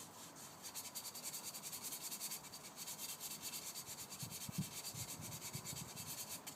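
Abrasive paper rubbed back and forth on the end of a copper pipe in quick, even strokes, cleaning it up for soldering. The strokes stop just before the end.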